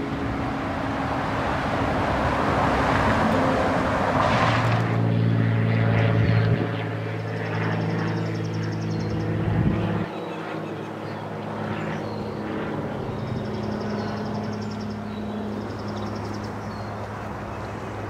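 Propeller airplane passing overhead, its engine hum swelling to a peak about five seconds in and dropping back sharply about ten seconds in. Short, high bird trills come a few times in the second half.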